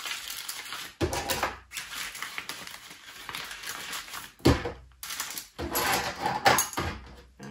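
Plastic accessory bags crinkling and small sewing-machine accessories clicking and knocking as they are handled and packed back into a bag, with a few sharper knocks, the loudest about four and a half seconds in.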